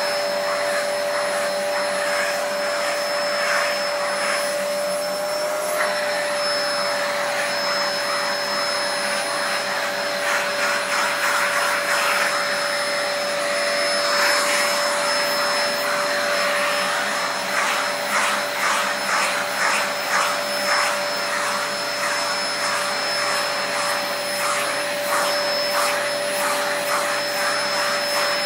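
Vacuum cleaner running with a steady motor whine while its nozzle is worked over a cat's fur. Through the second half the suction sound flutters, rising and falling quickly.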